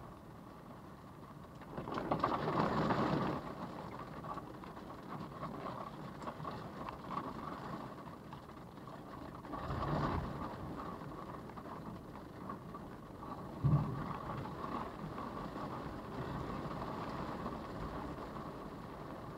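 Storm wind and rain buffeting a parked vehicle, heard from inside the cabin. Two louder gusts come, one about two seconds in and one about halfway, and a single dull thump follows a few seconds after the second.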